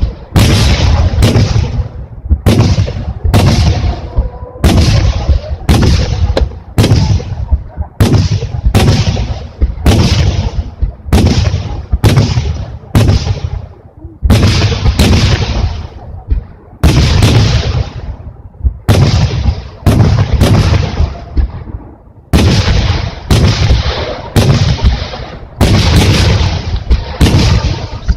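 Aerial firework shells bursting in rapid succession, about one loud bang a second. Each bang is followed by a rumbling echo that overlaps the next.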